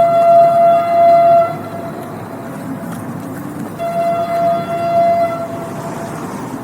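Train horn sounding one steady note in two long blasts, the first at the start and the second about four seconds in, over the rumble of a running train.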